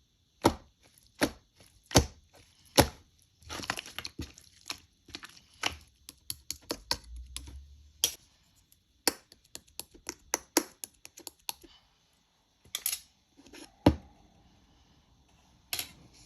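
Slime being pressed and stretched by hand, making sharp clicks and pops: four loud pops about a second apart at first, then quicker runs of smaller clicks and crackles, with a couple more loud pops near the end.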